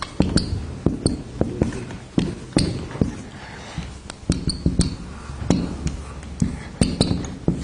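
Whiteboard marker drawing lines and letters: a run of irregular sharp taps against the board, some with short squeaks of the felt tip.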